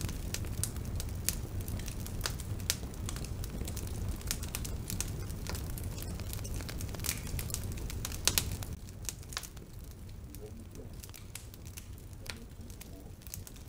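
Wood campfire crackling, with many sharp pops and snaps over a low rumble that drops away about two-thirds of the way through.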